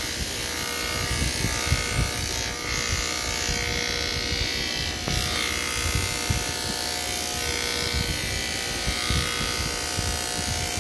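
Electric hair clippers running with a steady buzz as they are worked through a young man's hair, cutting it short.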